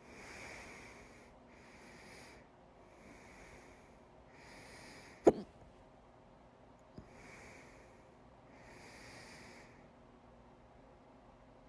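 A person breathing audibly in and out with hiccups: one sharp, loud hiccup about five seconds in cuts into the breaths, and a faint second catch follows shortly after.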